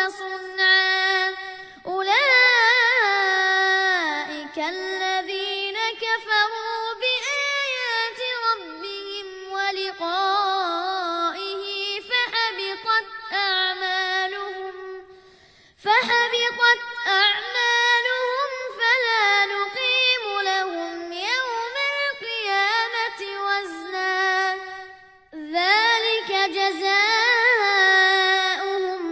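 A child reciting the Quran in melodic tajweed style, drawing out long ornamented phrases, with short breaths about 16 and 25 seconds in.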